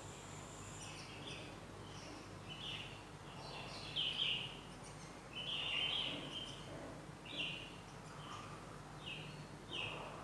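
Wild birds chirping: a string of short calls at irregular intervals of about half a second to a second, loudest about four and six seconds in.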